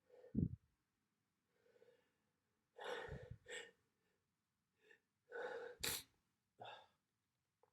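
A person sneezing twice, about three and six seconds in, each sneeze led by a gasping intake of breath, with shorter breaths between. A short low thump, the loudest sound, comes just after the start.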